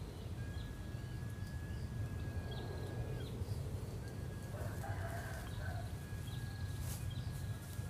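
A rooster crowing in the distance about halfway through, over small bird chirps and a long, steady, high whistling tone that comes three times.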